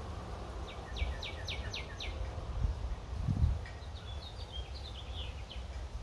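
Northern cardinal singing: a run of about six quick downslurred whistles about a second in, then a shorter, higher, choppier phrase of notes past the middle. A steady low rumble runs underneath, with a soft thump a little past halfway.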